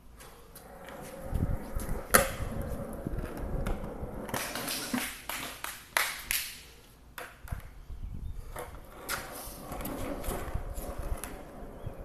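Skateboard wheels rolling on a smooth concrete floor in long swells of low rumble, with a few sharp clacks from the board, the clearest about two seconds in.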